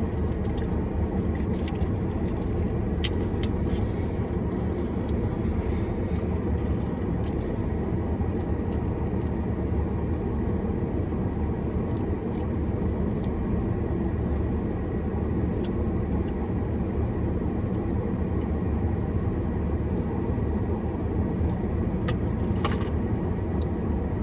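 Steady low vehicle rumble, with a few faint clicks and taps.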